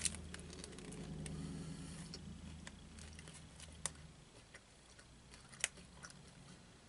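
Faint chewing of a crunchy chocolate chip peanut butter protein bar, with small mouth clicks and three sharp clicks or wrapper crinkles. A low hum runs under the first four seconds and fades out.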